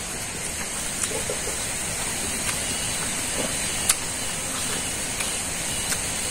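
Wet lip smacks and clicks of a man chewing a mouthful of rice and meat, a few sharp ones a second or two apart, over a steady hiss.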